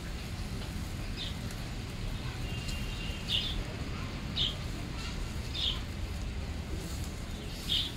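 A small bird chirping: short high chirps, each well under a second, repeated roughly once a second over a steady low background noise.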